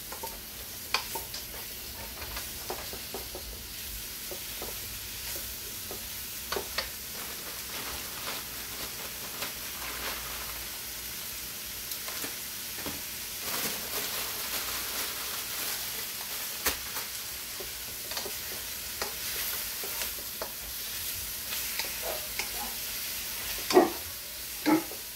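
Mushrooms and bean sprouts sizzling in a hot oiled wok on high heat, with a wooden spatula scraping and tapping against the pan as they are stirred. Two louder knocks come near the end.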